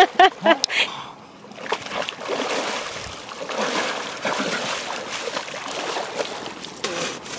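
A person wading through shallow lake water, legs sloshing and splashing with each step.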